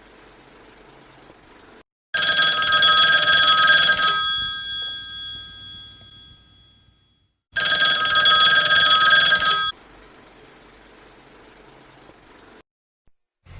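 Telephone bell ringing twice: a two-second ring that rings on and fades away over a few seconds, then a second two-second ring that stops sharply.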